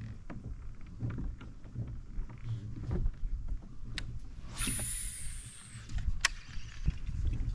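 A cast with a baitcasting reel. About four and a half seconds in, the spool whirs for about a second, its pitch falling as it slows, and a few sharp clicks and knocks follow as the reel is worked. A low rumble of wind on the microphone runs underneath.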